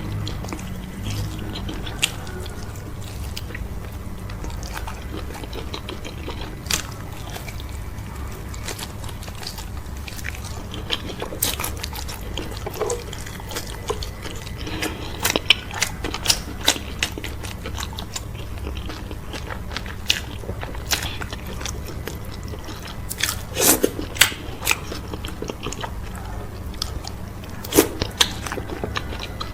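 Close-miked mouth sounds of eating okra soup with cow foot and fufu: chewing, biting and wet lip smacks, a scatter of sharp clicks that come thicker in the second half, over a steady low hum.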